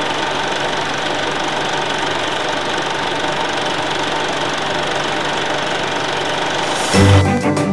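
Film projector running: a steady mechanical clatter. About seven seconds in, music with mallet percussion takes over.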